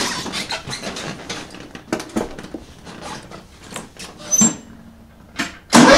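Rustling and knocking as someone climbs onto the rider mower and handles the seat and controls, with a brief squeak about four and a half seconds in. Near the end the Simplicity Coronet's Kohler engine, fitted with a slip-on exhaust pipe, starts suddenly and runs loudly.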